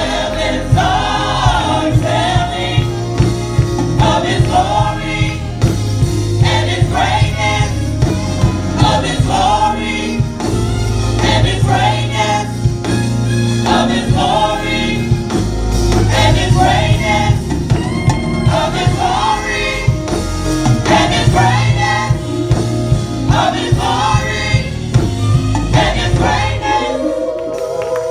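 Gospel choir singing over instrumental accompaniment with a heavy bass line; the bass drops out briefly near the end.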